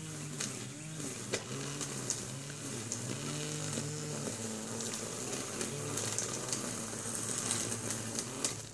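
Small two-stroke engine of a string trimmer running, its pitch rising and falling as the throttle is worked. The line hisses through weeds with occasional sharp ticks, and the engine note drops away at the very end.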